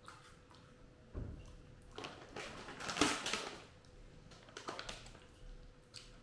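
Plastic snack packet crinkling and rustling as it is picked up and handled, loudest for about a second and a half around the middle, after a soft thump about a second in.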